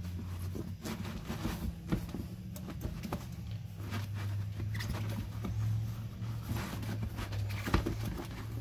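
Hands working a small pneumatic tire and inner tube on its rim: irregular clicks, taps and rubbing, over a steady low hum.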